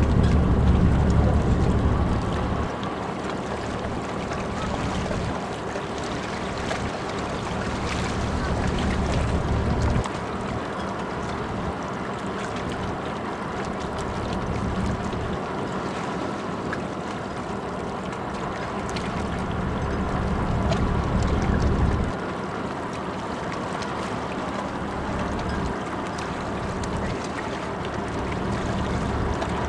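The large car ferry New Nagato's engines and machinery drone steadily as she pulls away from the berth under her own power. A deeper rumble swells and then drops off abruptly several times.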